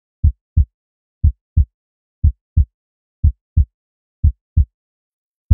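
Heartbeat sound effect: a steady low double thump, lub-dub, about once a second, with silence between the beats.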